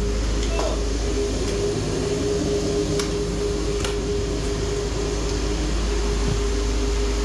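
Steady drone of airport ramp machinery: an even hum with a strong low rumble and a steady tone over it, with a couple of light clicks midway.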